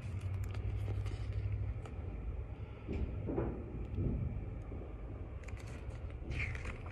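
Steady low room rumble, with faint handling noise from a picture book being turned around and held up to show its illustration.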